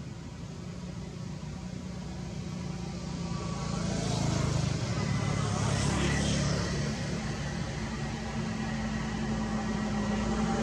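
A motor engine running, a steady low hum that grows louder about four seconds in and stays loud.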